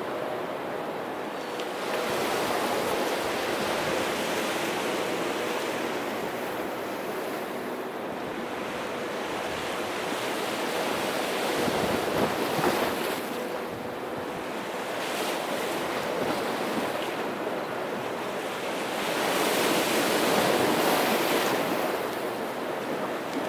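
Sea surf washing ashore in a continuous rush that swells as waves break, about three times.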